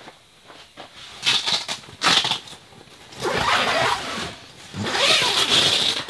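A tent's fabric door being unzipped: a few rustles and knocks, then two long raspy zipper pulls of about a second each, the second near the end.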